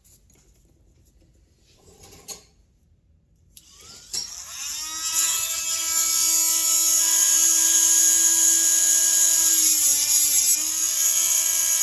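Handheld rotary tool spinning up about four seconds in, then running at a steady high whine; its pitch sags briefly near the end as the bit bears on the chainsaw piston during gas porting.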